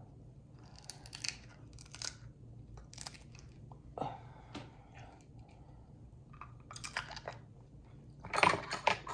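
A person chewing and crunching Dungeness crab close to the microphone, in short crackly bursts about once a second, loudest near the end.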